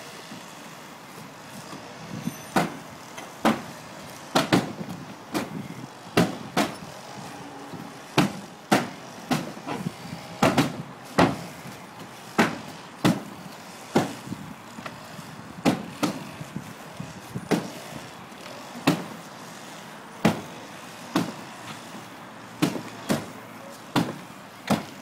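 Firefighter's axe chopping through plywood roof decking to cut a vertical ventilation hole: a long series of sharp, loud wooden strikes, roughly one a second and unevenly spaced.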